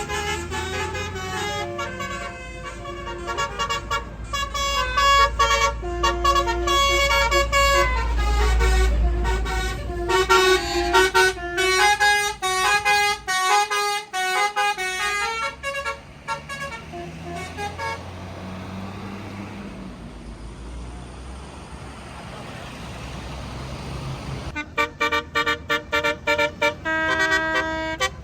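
Tour bus Basuri 'telolet' musical horn playing a run of stepping notes over the low rumble of the bus engine. After a stretch of engine and road noise in the middle, it returns near the end with a quick stutter of short horn notes.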